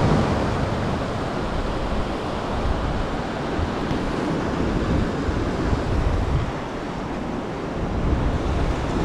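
Ocean surf washing against the shore, a steady rushing noise with wind buffeting the microphone. It eases a little about two-thirds of the way through.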